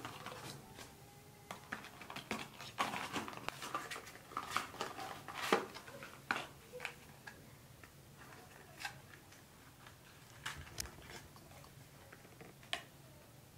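Unboxing noise from a portable label maker's cardboard box, papers and accessories: rustling and sharp clicks, busiest in the first half, then a few scattered clicks.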